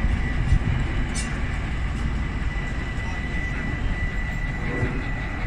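A train running through a station: a steady low rumble with a thin, steady high whine over it, and a single thump about half a second in.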